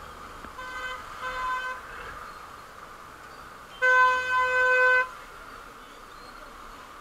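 A single-note vehicle horn sounds two short, fainter toots near the start, then one loud blast of about a second roughly four seconds in. Steady traffic and wind noise runs underneath.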